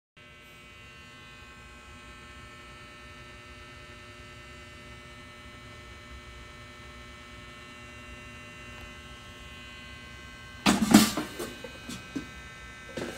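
Gaabor 4.5 L air fryer running with a steady electric hum. Near the end come loud clunks and rattles as its basket is handled by the handle.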